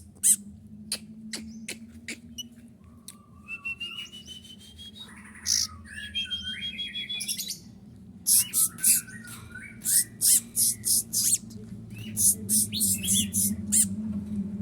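Kolibri ninja (konin) singing: runs of sharp, shrill chips with short whistled and warbled phrases between them. Its song is filled in with learned prenjak and kapas tembak calls.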